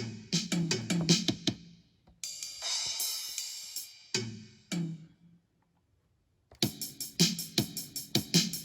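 Drum sounds from an Akai MPK Mini Play MK3, with kick, snare, hi-hat and cymbal hits in quick runs, a ringing cymbal crash about two seconds in and a short silent gap past the middle.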